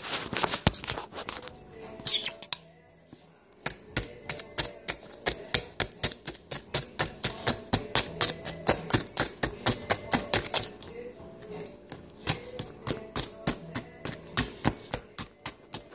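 A spoon mashing graham cracker crumbs into a cup of yogurt, knocking against the cup in quick repeated taps, about four a second, with a short pause about three seconds in.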